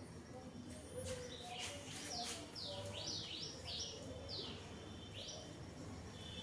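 A small bird chirping, a quick run of short downward-sliding chirps about two to five seconds in, over a faint low hum.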